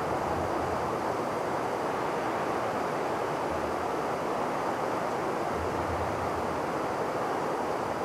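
Strong storm wind blowing in a steady rush, with a low rumble swelling up now and then.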